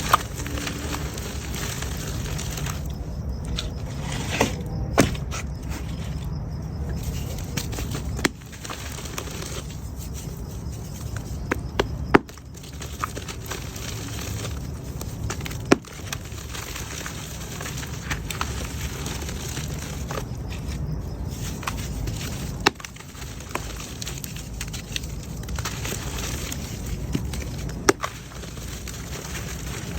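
Mud crumbling and breaking apart, with a continuous crackling hiss and sharp snaps every few seconds.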